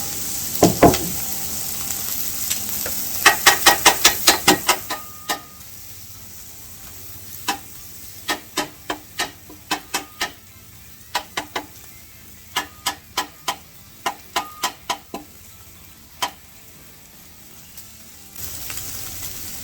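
Carnitas sizzling on a Blackstone steel flat-top griddle, with a metal spatula clacking against the griddle top: a quick run of about eight strikes a few seconds in, then scattered single strikes for the next ten seconds or so. The sizzle drops away about five seconds in and comes back near the end.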